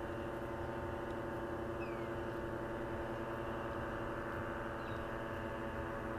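Paramotor engines droning steadily overhead at a distance, an even, unbroken engine hum.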